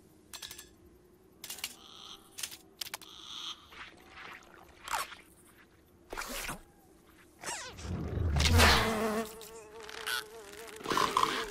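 Cartoon sound effects: a housefly buzzing, first with a run of short, quick effects, then a loud swishing swell about eight seconds in as a lizard's long tongue shoots out. The fly's buzz then holds a steady, wavering pitch to the end.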